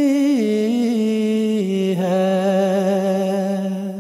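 A man singing an Urdu nazm solo and unaccompanied, stretching each syllable over several notes in a slow line. The pitch steps down twice, then settles on a long held note with vibrato that trails off at the end.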